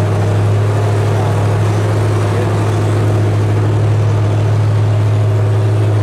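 A loud, steady low mechanical hum with a constant pitch and no changes, from a running machine such as an engine or a large blower.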